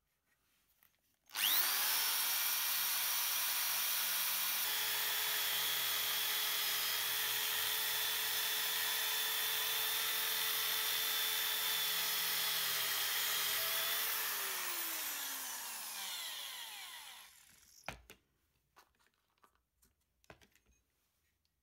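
Corded electric drill with a sanding drum in its chuck, spinning up about a second in and running steadily while it grinds against the bike's metal frame. It winds down with a falling pitch, followed by a sharp click and a few light knocks.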